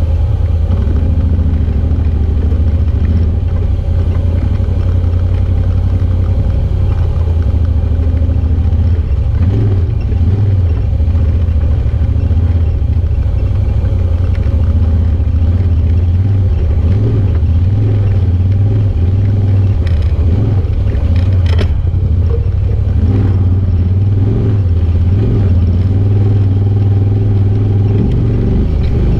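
Side-by-side UTV engine running steadily under load as it crawls over a rocky creek bed and slickrock, heard from on board. A few sharp knocks about two-thirds of the way through.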